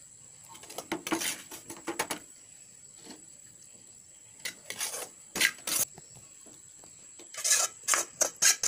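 Scattered short clinks and scrapes of a plate and utensils being handled, in three brief clusters, the busiest near the end.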